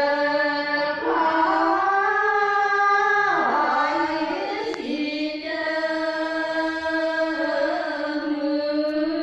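Women's choir singing unaccompanied, holding long steady notes and moving to new pitches between phrases.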